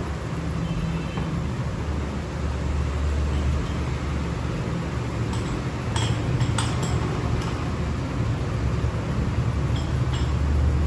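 Workshop machinery running with a steady low hum, with a few sharp metallic clinks about six to seven seconds in and again near the end.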